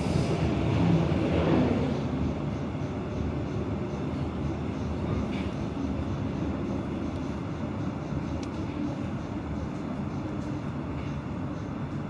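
Steady rumble of a moving train, heard from inside the passenger car, a little louder in the first two seconds.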